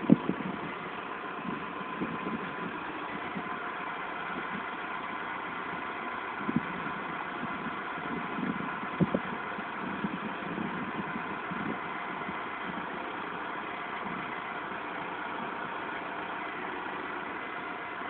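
McCormick MC 90 tractor's diesel engine idling steadily, with a few short knocks: one at the start, one around six and a half seconds in, and two close together about nine seconds in.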